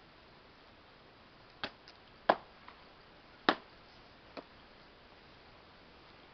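Taped practice swords striking each other in sparring: a few sharp knocks in irregular succession, the two loudest about two and three and a half seconds in.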